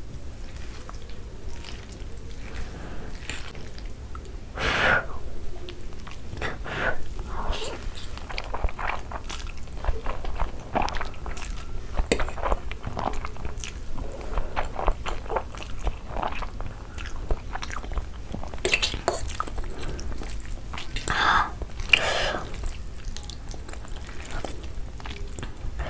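Close-miked chewing of saucy black bean noodles: wet mouth clicks and smacking throughout, with a few louder slurps as forkfuls of noodles are drawn into the mouth.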